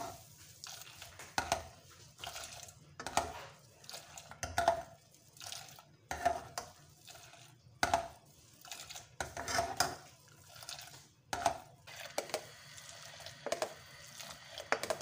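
Metal ladle stirring hot milk with beaten egg in a steel saucepan: the liquid swishes and the ladle clinks and scrapes against the pan in repeated strokes, roughly every one and a half to two seconds. The stirring over low heat keeps the egg from forming lumps in the milk.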